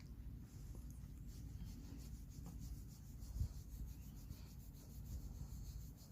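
A sleeping dog snoring faintly, a low rasping rumble in its breathing, with a single thump about three and a half seconds in.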